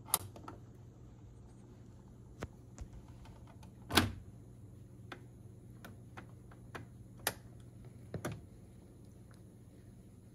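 BSR C124 mini record changer running through its start cycle: the turntable motor hums steadily while the cycling mechanism ticks and clicks, with louder clunks just after it is switched on, about four seconds in, and again around seven to eight seconds in, as the tonearm lifts and swings over onto the record.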